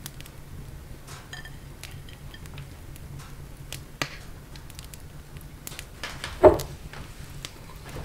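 Kitchen handling sounds: scattered small clicks and taps, a sharp tap about four seconds in, and a louder knock with a short ring about six and a half seconds in, over a low steady hum.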